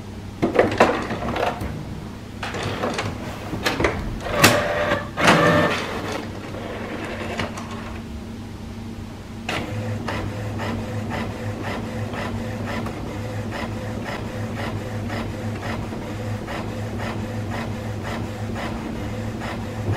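HP Smart Tank 7000-series ink tank printer printing a photo. For the first several seconds there are irregular clicks and whirs as the mechanism starts up and takes in the sheet. From about ten seconds in comes a steady, rhythmic mechanical run of about two strokes a second as it prints.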